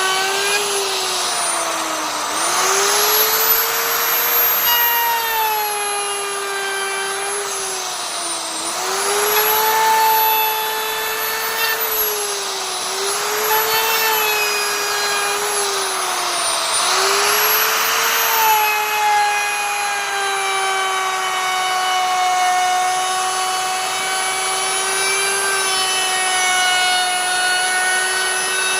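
Electric wood router running at a high whine. Its pitch sags and a rough cutting hiss rises each time the spinning bit is pushed into the wood, then the pitch recovers: this happens four times in the first twenty seconds, after which the motor runs at a steady pitch.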